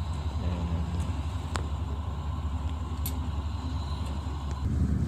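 Ship's engine running with a steady low rumble, heard on deck, with a couple of short sharp metallic clicks from the anchor windlass gear.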